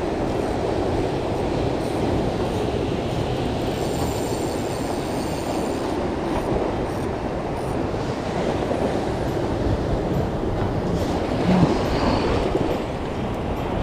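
Ocean surf washing and breaking against shore rocks: a steady rumbling wash of water, with a slightly louder surge near the end.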